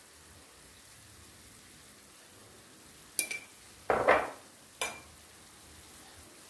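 Cooking in a pan over a faint steady sizzle: a metal spoon clinks sharply on the pan twice, about a second and a half apart, with a short scraping stir between the clinks.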